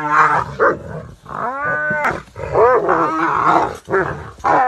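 An animal held in a donkey's bite crying out in pain again and again. The cries are pitched and rise and fall, most of them short, with one longer drawn-out cry about one and a half seconds in.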